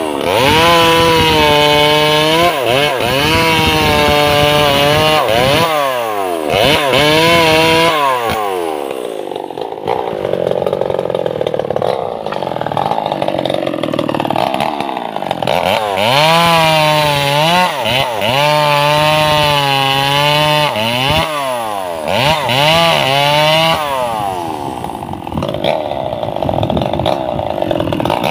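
Maestro two-stroke chainsaw running at high revs through sengon laut logs, its pitch dipping and climbing back again and again. It eases into lower, rougher running for several seconds about a third of the way in and again near the end.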